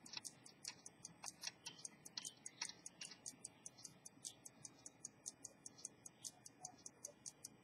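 Antique Swiss jump-seconds pocket watch ticking faintly and evenly, about five ticks a second, with its movement open.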